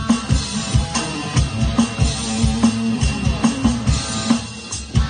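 Instrumental stretch of a rock-style song: a drum kit keeps a steady beat with kick drum, over bass and guitar, without singing.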